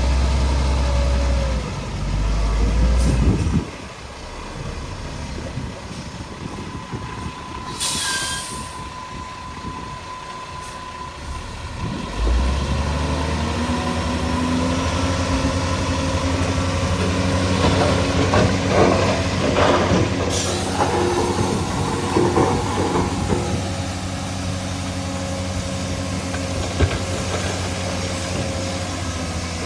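Heavy diesel earthmoving machinery working. Engines run throughout, loudest for the first few seconds, with a short sharp hiss of air about eight seconds in and metallic clanking and squealing in the middle.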